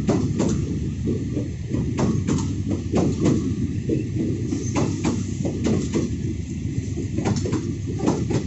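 Passenger train coaches rolling past close by, a steady low rumble with repeated sharp clacks of the wheels on the rails.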